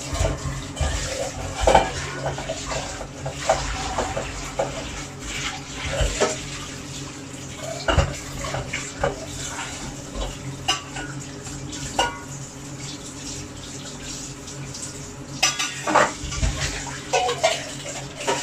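Irregular clinks and knocks of pots and kitchenware over a steady low hum, with a faint watery sound in the background.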